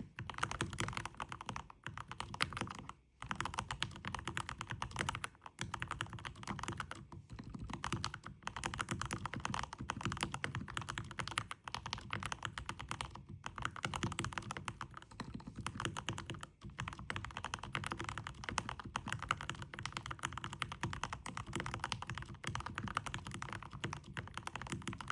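Fast, continuous typing on a Keychron K10 Max mechanical keyboard fitted with lubed Gateron Milky Yellow linear switches: a dense clatter of keystrokes, broken by a few brief pauses.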